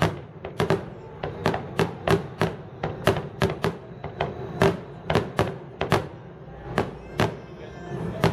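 Fireworks finale: aerial shells bursting in rapid, irregular succession, about three sharp reports a second.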